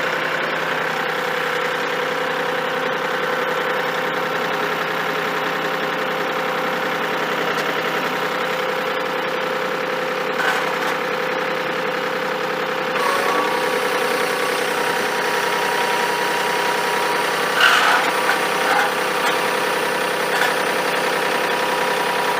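Tractor engine running steadily while its fork mounts lift a sawmill. The engine note shifts slightly about halfway through, and there are a few short knocks near the end.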